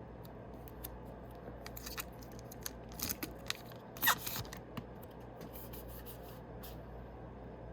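Foil Yu-Gi-Oh booster pack wrapper crinkling and being opened, with scattered small crackles and a louder rip about four seconds in.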